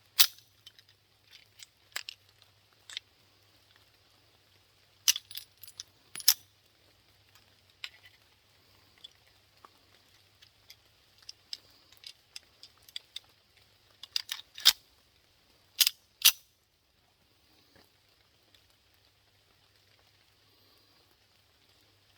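Sharp metallic clicks and clacks of a pistol being handled, a dozen or so separate knocks with louder ones near the start and in pairs around five-six and fifteen-sixteen seconds in, then only faint ticks. A faint steady high hiss runs underneath.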